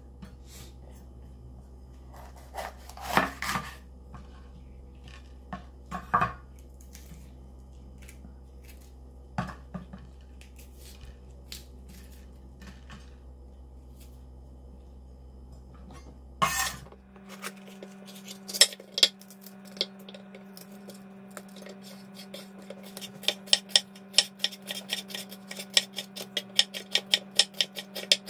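Chef's knife on a wooden cutting board. Scattered sharp knocks and scrapes come as green hot peppers are slit open and seeded. Near the end there is rapid, even chopping at about four strokes a second as the peppers are sliced into thin strips.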